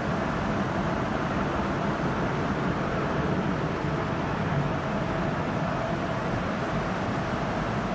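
Heat-setting machine for tubular fabric running, a steady mechanical noise at an even level with a faint constant whine.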